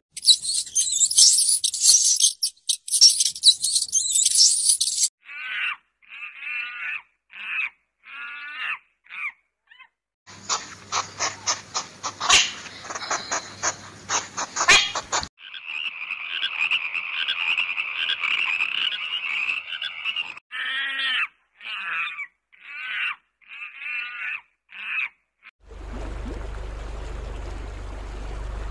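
A run of separate animal-call recordings: a high buzzing for the first five seconds, then short repeated calls, a rapid ticking chorus, a steady trill and more short calls. From about 26 seconds a steady rushing like running water takes over.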